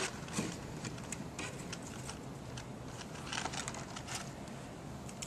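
Paper being handled: faint rustling and a few light taps as a paper model canoe and a thin paper thwart strip are moved and fitted together, over a steady low background hum.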